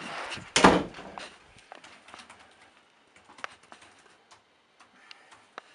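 A loud thump about half a second in, amid brief rustling, then light, irregular clicking of laptop keys being typed.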